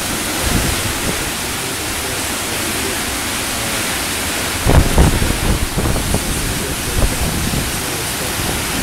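Hurricane wind and heavy rain making a steady rushing hiss, with gusts buffeting the microphone in low thuds about five seconds in and again a couple of seconds later.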